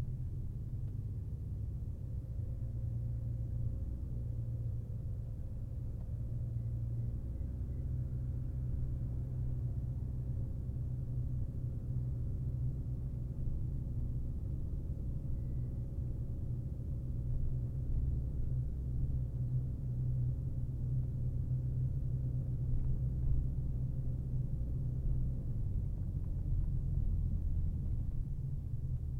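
Steady low rumble of a car driving: engine and tyre noise on the road, rising and falling slightly.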